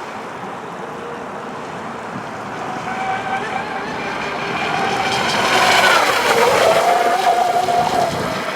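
Pro Boat Miss Geico RC racing boat's electric motor whining at speed over the rush of water. The whine grows louder, and its pitch drops about six seconds in as the boat passes by.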